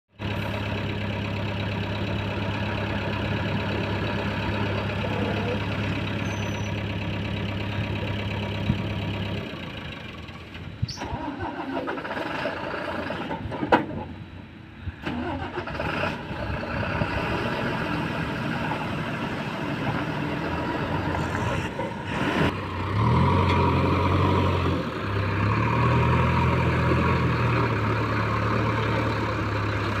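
Diesel engine of a JCB backhoe loader, with the tipper truck's engine nearby, running at a steady idle, broken by a few sharp knocks midway. Near the end the engine revs up in steps and holds higher under hydraulic load as the loader's front bucket lifts to dump gravel into the truck.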